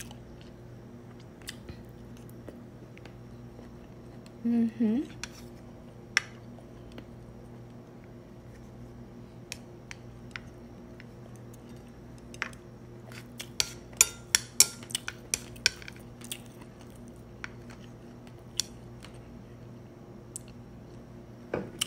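Chopsticks clicking and tapping against a plate while picking up noodles, in scattered single clicks with a quick run of them about two-thirds of the way through, over a steady low hum.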